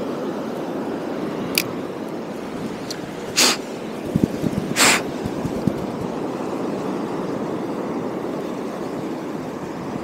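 Steady rush of sea surf and wind on the microphone, broken by three short hissing bursts about one and a half, three and a half and five seconds in.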